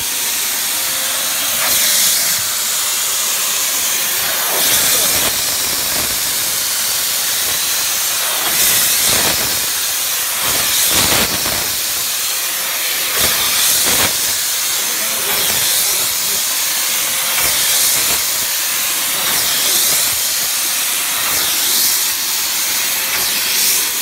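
Steady hiss of steam jetting from the wand of an LPG steam car washer as it is worked over a carpet mat, swelling every second or two, with a faint steady tone underneath.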